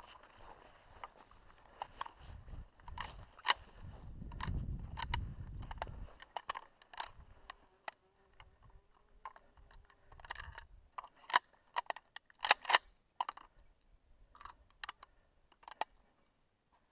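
A hunter's footsteps pushing through dry bracken and scrub: scattered sharp snaps and cracks of dry stems and twigs, with a low rumble of body movement in the first half.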